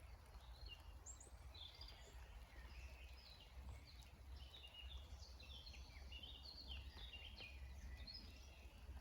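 Faint spring birdsong: small birds giving short high chirps and quick trills, busiest in the middle, over a low steady rumble.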